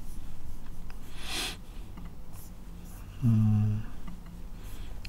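A man's voice without words: a breath about a second in, then a short hummed "mm" at one steady pitch about three seconds in, with a few faint clicks.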